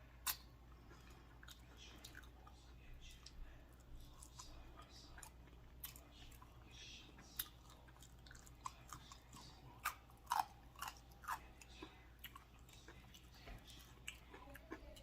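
A person chewing a juicy turkey burger with faint, wet mouth clicks, a few louder ones about ten seconds in.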